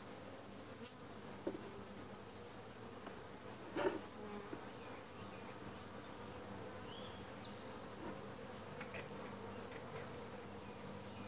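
Honey bees buzzing steadily over an open hive. A few light wooden knocks come from the hive tool and frames being worked loose, the loudest about four seconds in.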